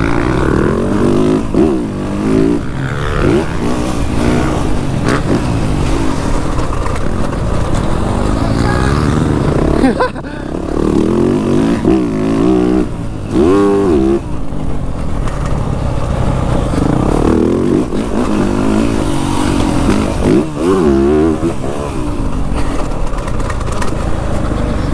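Motocross bike engine heard from the handlebars while riding a dirt track, revving up and falling back over and over as the throttle is opened and closed through the corners and straights, with a brief drop in the engine note about ten seconds in.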